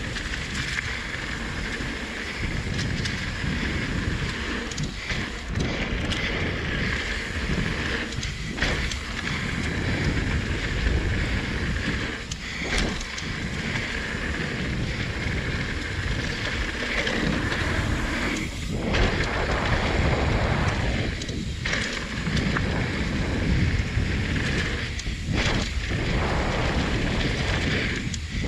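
Wind buffeting a chest-mounted action camera while riding a Trek Rail 7 electric mountain bike down a trail, mixed with the rumble of the tyres and bike over the ground. A dense, loud noise that briefly dips several times.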